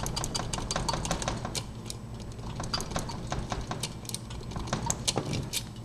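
Blank key being bumped up and down in a five-wafer Slaymaker padlock while impressioning: a fast, irregular run of small metallic clicks that thins out after about two seconds.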